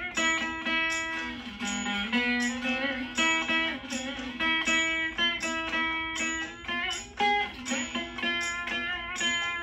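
Saraswati veena played solo: plucked notes slide and bend in pitch along the frets in Carnatic gamakas, with one note rising noticeably about two seconds in. A quicker run of plucked notes comes near the end.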